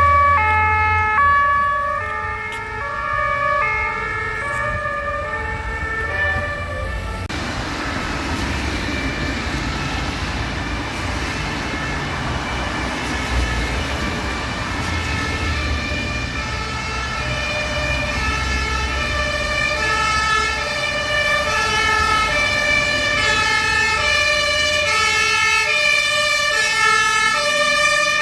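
Fire engines' two-tone Martinshorn sirens sounding, several overlapping at different pitches, each stepping back and forth between two notes, over the low running of the trucks' engines, which fades out about two-thirds of the way through.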